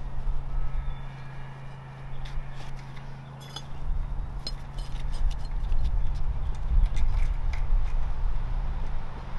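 Clay bricks being handled and set down on soil, with scattered short clinks and scrapes, over a steady low hum and rumble.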